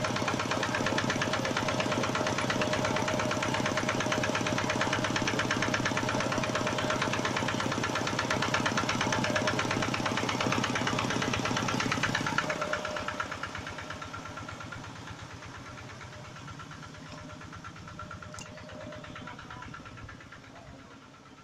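Generator engine running steadily with a fast, even knocking beat. It grows fainter from about halfway through as it is left behind.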